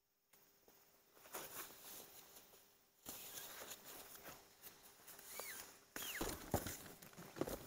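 Tent fabric rustling and small knocks and clicks from tent poles as a dome tent is being pitched, with two short high sliding whistles about two-thirds of the way through.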